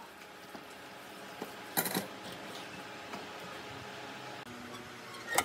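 Steel C-clamps clanking against each other as they are taken off and set down on a pile of clamps: a quick cluster of metal clanks about two seconds in and another loud clank near the end.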